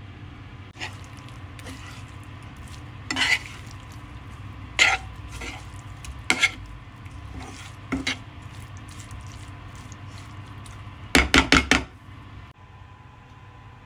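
Metal spoon stirring chicken fry in a frying pan: scattered scrapes and clinks against the pan every second or two, then a quick run of several knocks near the end, over a steady low hum.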